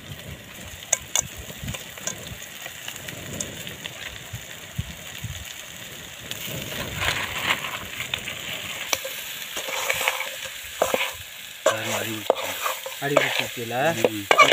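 Crabs being stirred into a sizzling red masala in a metal pan: a steady frying sizzle with scattered clicks and knocks as the shells and spoon hit the pan.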